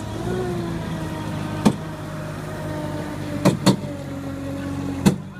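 Eight-wheeled robotic ATV running as it drives and turns: a steady low hum with a whine that wavers up and down in pitch. Four sharp clicks or knocks are heard, about a third of the way in, two close together past the middle, and one near the end.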